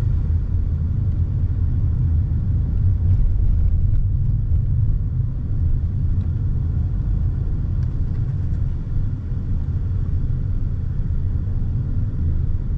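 A Citroën car driving at town speed, heard from inside the cabin: a steady low rumble of engine and tyre noise.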